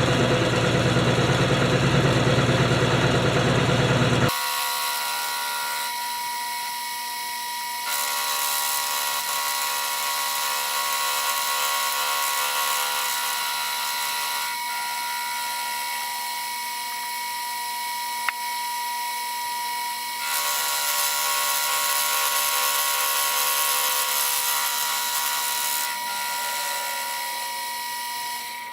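A low, heavy machine rumble for about four seconds, cut off abruptly. Then a shop power tool runs with a steady high-pitched whine and hiss, shifting in level every few seconds, with a single sharp click in the middle.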